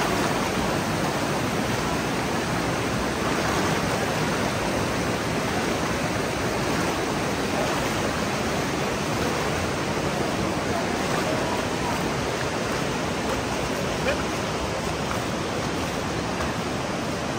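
Rushing water of a shallow river flowing over stones through a rock gorge: a steady, even hiss.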